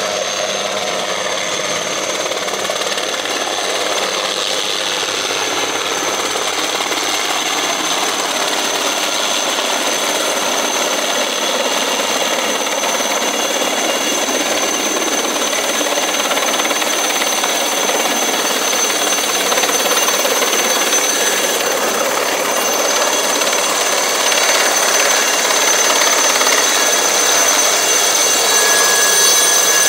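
HAL Chetak (Alouette III-type) helicopter coming in low: a steady high turbine whine over the rotor noise, growing gradually louder as it nears.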